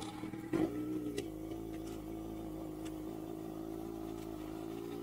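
Sport motorcycle engine running steadily at low revs, an even low tone with a brief knock about half a second in.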